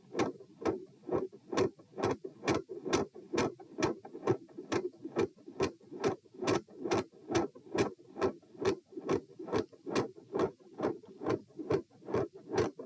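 Heartbeat heard through a stethoscope after a crouching manoeuvre, beating fast and regularly. The first heart sound (S1) is very quiet and the second (S2) is loud and widely split.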